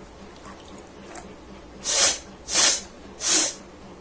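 Three forceful nose blows in quick succession, each a short sharp rush of air about two-thirds of a second apart, blowing water out of the nose.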